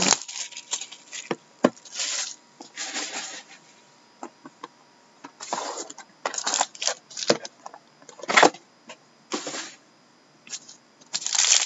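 Plastic shrink-wrap crinkling as it is pulled off a cardboard trading-card box, then the box being opened and handled: irregular rustles with a few light knocks, broken by short pauses.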